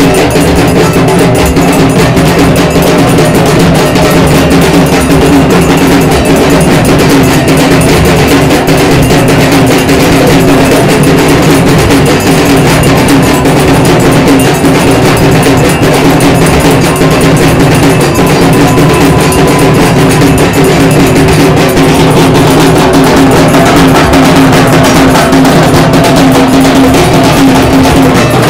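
A group of drums beaten with sticks in loud, continuous ritual drumming for the Durga Puja offering.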